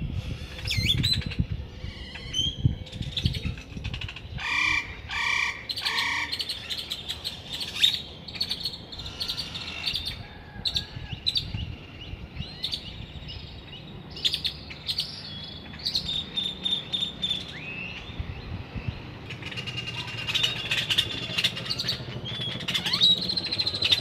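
Several wild birds calling at once, with many short chirps and whistled notes overlapping. Three louder notes come in a row about five seconds in, over a low background rumble.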